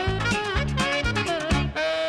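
Background music with a regular beat in the low notes and a chord held near the end.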